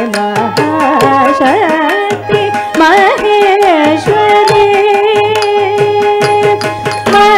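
Live Carnatic dance accompaniment: mridangam drum strokes under a sung and violin melody with sliding ornaments, holding one long note through the middle.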